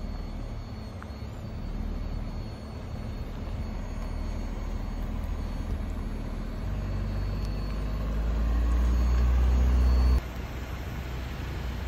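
INEOS Grenadier 4x4's engine running as it crawls up a rocky dirt trail, growing louder as it approaches with its note rising slightly over several seconds, then cutting off abruptly about ten seconds in.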